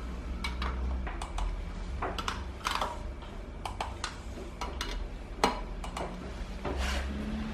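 Irregular light metallic clicks and ticks from a torque wrench being fitted to and turned on the spoke nipples of a KTM 250 EXC dirt-bike wheel, checking each spoke's tension in turn. One louder click comes about five and a half seconds in, over a steady low hum.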